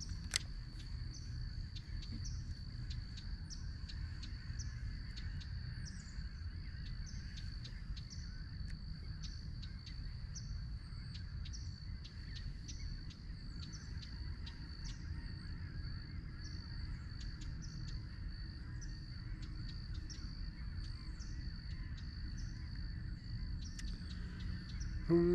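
Quiet outdoor ambience on the water: a steady low rumble, a thin steady high-pitched whine, and a scattering of faint short high ticks and chirps.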